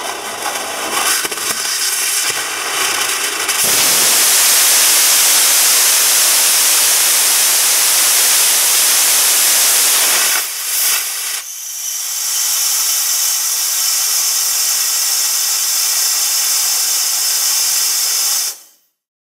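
Hy800 "Corvette" hybrid rocket engine, burning HTPB with liquid oxygen, firing: an uneven start for about four seconds, then a loud, steady rushing hiss for about six seconds. After a brief dip it gives way to a thinner, high hiss of gas flow once the flame is out, which cuts off sharply near the end.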